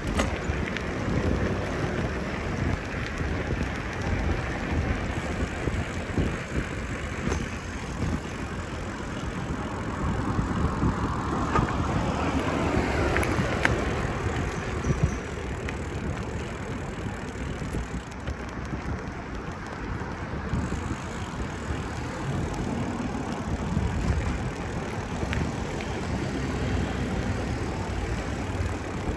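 Noise of a bicycle being ridden, heard from a camera mounted on the bike: a steady rush and rumble with small jolts and rattles. The rush swells for a few seconds around the middle.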